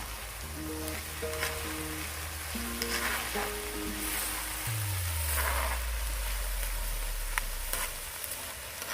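Kimchi fried rice sizzling on a hot cast-iron griddle over a wood fire as it is stirred, with sharp clicks of the utensil against the iron. Background music plays along, with a low falling tone about halfway through.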